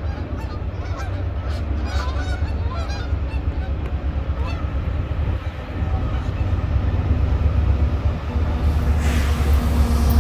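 Approaching diesel freight locomotive: a low rumble that grows steadily louder, with a rushing rise of wheel and rail noise in the last second or so. Geese give short repeated honks in the first few seconds.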